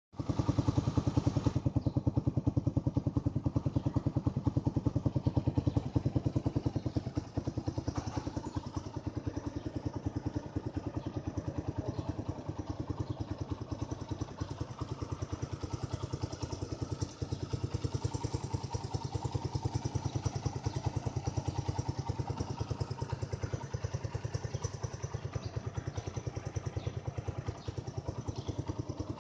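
Honda XL185 motorcycle's single-cylinder four-stroke engine idling, its exhaust beats coming in a steady, even rhythm. It runs a little louder for the first few seconds, then settles slightly lower.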